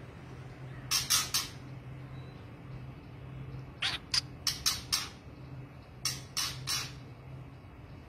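White-rumped shama giving short, harsh calls in three quick bursts: three notes about a second in, five notes around four seconds in, and three more around six seconds in.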